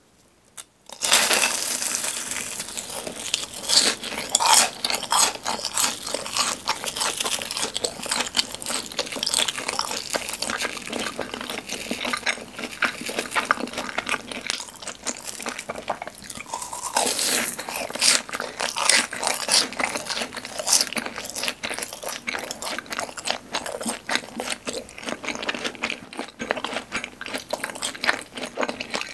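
Close-miked crunching and chewing of a fried cheese ball's crisp brown shell, starting about a second in. The crust cracks in dense, irregular crackles as it is bitten and chewed.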